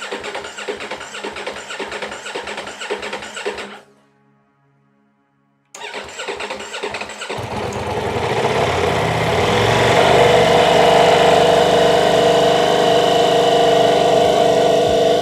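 Ducati V4 motorcycle engine being cranked on its electric starter for about four seconds without catching, then after a brief break cranked again until it fires about seven seconds in and settles into a steady idle. This is its first start after sitting as a salvage bike.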